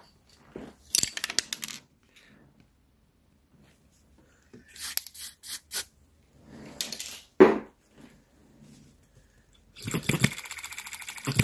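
Scattered clicks, scrapes and rustles of hands and a grease tin working at the hit-and-miss governor mechanism of a 3.4 cc four-stroke petrol model engine, with one sharp click a little past halfway. About ten seconds in, the engine runs with a fast, even beat.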